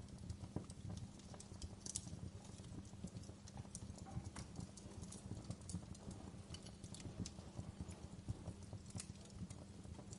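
Campfire burning: wood crackling with many irregular sharp pops and snaps over a low, steady rumble of flames.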